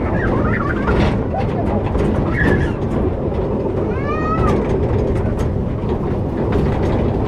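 Side-friction wooden coaster car rolling along its track with a steady rumble and rattle. About four seconds in, a rider's brief high-pitched voice rises and falls over it.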